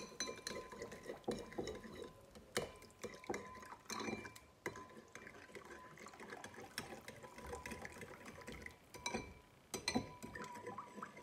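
Metal spoon clinking and scraping against a ceramic bowl as tomato paste is stirred, while boiling water is poured in from a glass kettle, with repeated clinks throughout.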